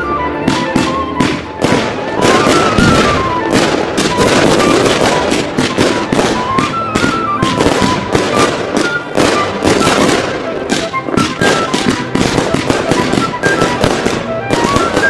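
A dense run of fireworks going off: rapid bangs and crackling from rockets and aerial shells bursting in quick succession, with music carrying a simple stepping melody underneath.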